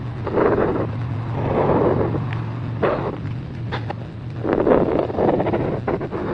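Marker scratching across paper in repeated colouring strokes, each lasting about half a second to a second, with a few sharp taps between them.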